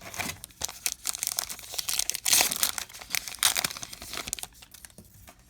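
A baseball card pack's wrapper being torn open and crinkled, a dense crackle of many quick clicks that is loudest in the middle and dies away near the end.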